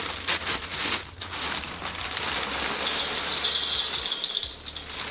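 A plastic cereal bag crinkles as it is pulled open, then Cap'n Crunch Halloween Crunch cereal pours out in a steady rattling stream into a large stainless steel bowl.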